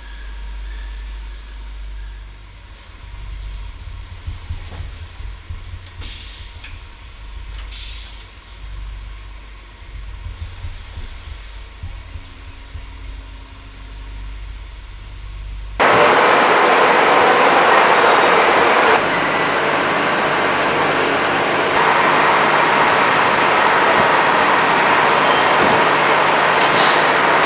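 CNC machine machining a steel starter drive shaft: a low machine rumble with scattered light clicks. About halfway through, a loud, steady hiss sets in abruptly and runs on with a faint high whine, dropping briefly in level and then rising again.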